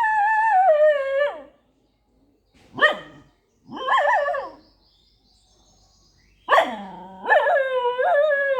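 Dog crying: high, drawn-out whining cries. The first falls in pitch and stops a little over a second in, a short yelp and a wavering cry follow, and a longer wavering cry starts near the end.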